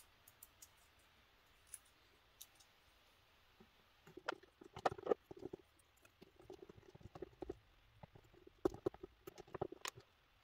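Light clicks and taps of small plastic action-figure parts being handled, fitted together and set down on a cutting mat. A few isolated clicks at first, then a busy run of clicking and knocking from about four seconds in.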